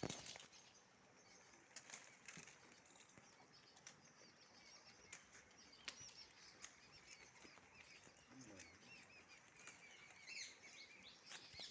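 Near silence, with faint birds chirping, busier near the end, and a few soft clicks.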